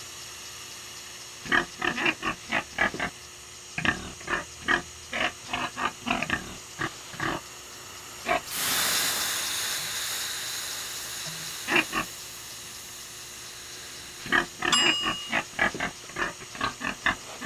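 Pig grunting in many short, irregularly spaced grunts. A steady hiss runs for about three seconds midway.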